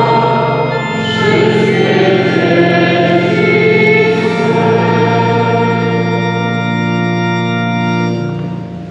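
Church organ playing sustained chords while voices sing a hymn. The chords change about a second in and again around four and a half seconds, and the music drops away near the end.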